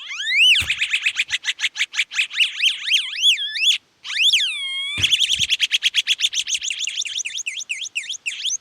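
Electronic chirping from a homemade fidget spinner's NE555 tone circuit, played through an earphone speaker: quick repeated sweeps in pitch, a brief cut-out just before halfway, one long swooping tone, then a fast run of even pulsing beeps.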